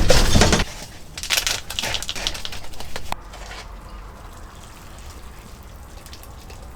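Water poured into a pot for ramen, splashing irregularly for a couple of seconds, then a low steady hiss.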